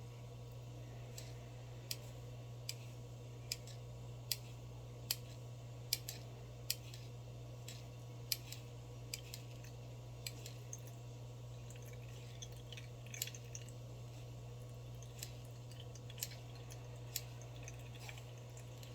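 A run of sharp, short clicks over a steady low hum, at first evenly spaced about one every 0.8 seconds, then scattered and irregular.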